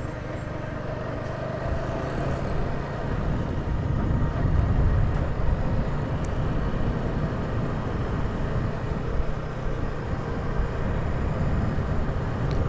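Motorcycle engine running steadily while riding, under an even rush of road noise.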